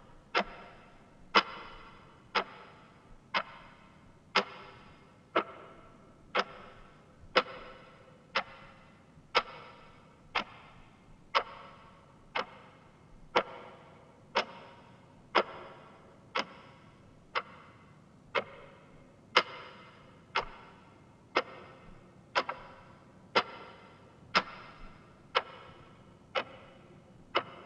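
Grandfather clock ticking steadily, about one sharp tick a second, each tick with a short ringing tail.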